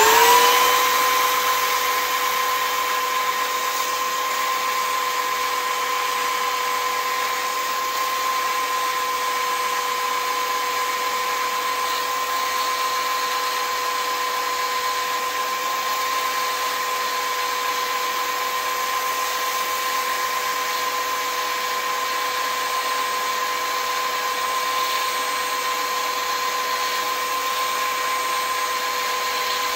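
Belt sander switching on, its motor rising to speed within about a second and then running with a steady hum, used to sand down a screw-in arrow field point.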